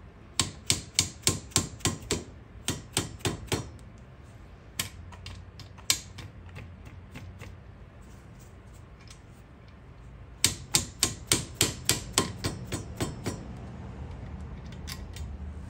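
Quick light hammer taps, most likely a dead blow hammer, seating the camshaft caps down onto the cylinder head of a Kawasaki KFX 400 engine. The taps come in runs of about four a second, with a few single taps and a pause in the middle.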